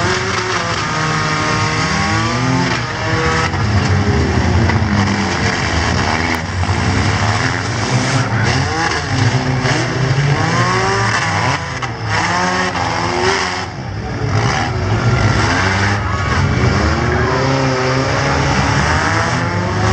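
Several compact four-cylinder car engines revving up and down at once as the cars ram each other in a demolition derby, with tyres spinning and a few sharp knocks from collisions.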